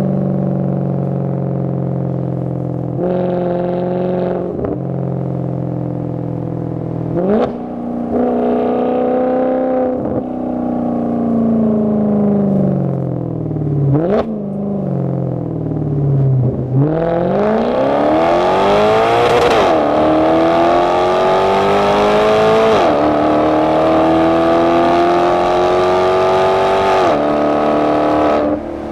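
Maserati Quattroporte Sport GT S V8 through a Tubi-style sports exhaust. It cruises steadily, then slows with the engine note falling and sharp throttle blips on the downshifts. From about two-thirds in it accelerates hard, the note climbing through the gears and dropping back at three upshifts.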